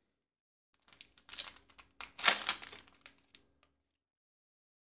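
Foil booster-pack wrapper crinkling and tearing as it is opened, a run of rustles lasting about two and a half seconds, loudest near the middle.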